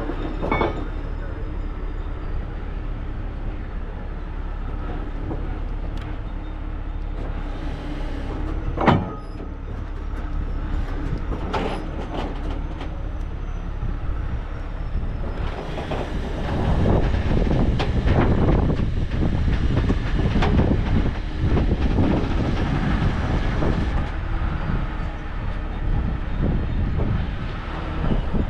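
A heavy tow truck's diesel engine runs steadily while its hydraulic underlift is worked. A single sharp metal clank comes about nine seconds in, and a few lighter clanks come around twelve seconds. The running grows louder and rougher from about sixteen seconds on.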